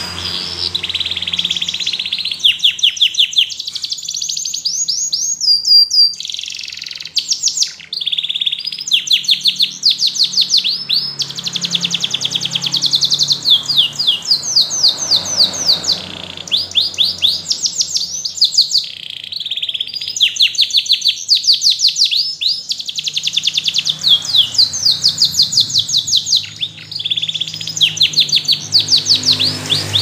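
Yellow domestic canary singing: a long, unbroken song of high-pitched, fast trills, each phrase a rapid string of repeated notes lasting a second or two before it switches to another, with only brief pauses between phrases.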